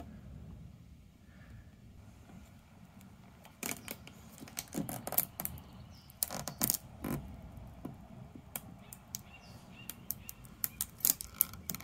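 Clear transfer tape being rubbed down and peeled off a vinyl decal on a car's painted body panel, giving irregular crackles and scratchy clicks from about three and a half seconds in, over a faint low hum.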